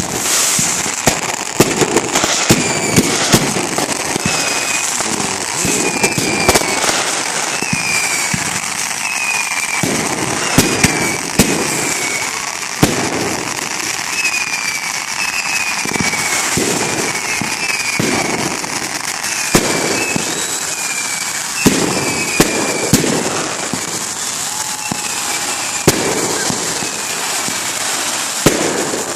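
Fireworks going off without pause: dense crackling with frequent sharp bangs, and many short, falling whistles.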